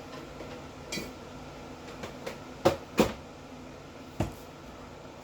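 A few sharp knocks and clicks of hard objects being handled: one about a second in, two loud ones close together near the middle, and one more after four seconds, over a low steady hum.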